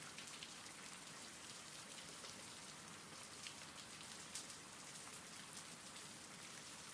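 Faint, steady rain: an even hiss with scattered individual drops ticking through it.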